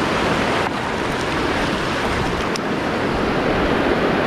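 Steady rush of high water pouring through a spillway.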